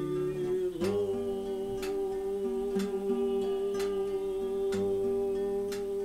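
A man singing one long held note, starting about a second in, over an acoustic guitar strummed about once a second.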